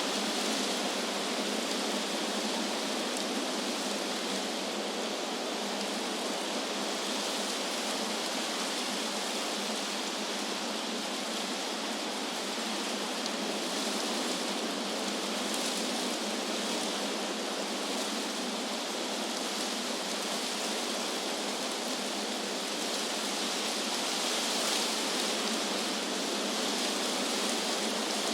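Wind rushing through tree leaves as a steady hiss, swelling slightly now and then.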